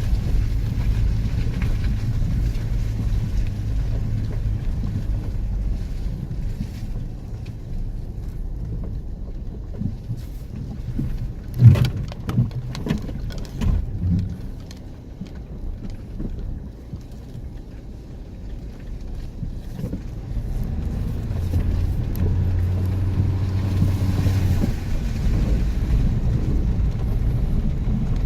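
An off-road vehicle's engine running with a steady low drone, with a few sharp knocks about twelve seconds in, the first of them the loudest. It eases off for a few seconds after the knocks, then picks up again with a clearer engine note.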